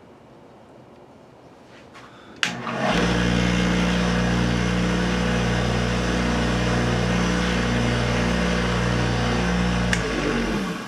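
Wood lathe switched on with a click, its motor running at a steady hum for about seven seconds while Renaissance wax is buffed off the spinning pen blank with a cloth. It is switched off with a click near the end and spins down.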